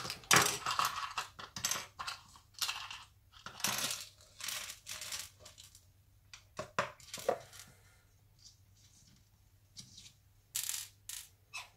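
Small metal screws rattling in a plastic pot and spilling onto a wooden worktop, clinking in several bursts over the first five seconds. A few single clicks follow as they are sorted, then another short rattle near the end.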